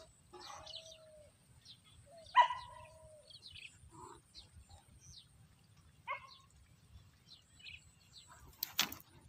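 Birds calling at a rural pond: quick high chirps throughout, a short level whistled call repeated three times, and a loud sharp call about two and a half seconds in. Near the end comes a brief loud burst of noise.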